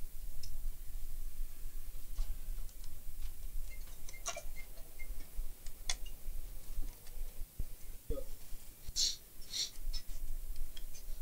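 Scattered light clicks and taps of a laptop being taken apart by hand as its parts and cables are handled, with a brighter cluster of clicks about nine seconds in, over a low steady hum.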